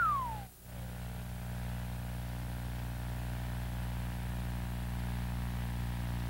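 A falling whistle-like glide tails off about half a second in. A steady low electric hum of several even tones follows and runs unchanged.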